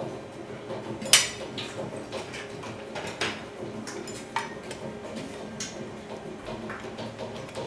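Malka spiral dough mixer running steadily as it kneads pizza dough, with several sharp clinks and knocks of kitchen items being handled, the loudest about a second in.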